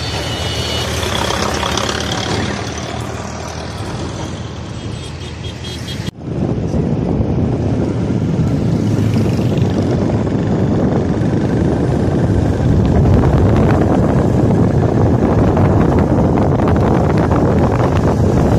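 Road traffic passing on a highway, with a tractor and trucks going by. About six seconds in it cuts to the steady, louder noise of riding a motorcycle down the road: its engine and wind on the microphone.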